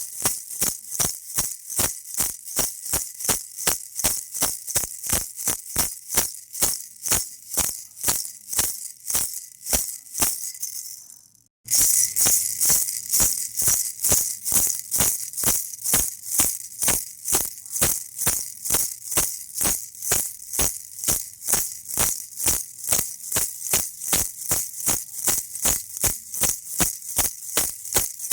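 Baby rattle shaken in a steady rhythm, about three bright, high shakes a second. The shaking fades out about ten seconds in and cuts back in abruptly at full loudness a moment later, as the loop restarts.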